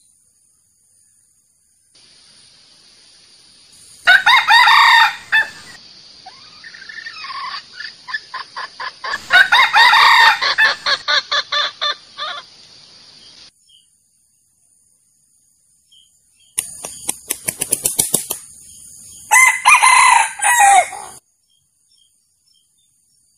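Male junglefowl crowing three times, with quick runs of clucks between the crows, over a steady hiss.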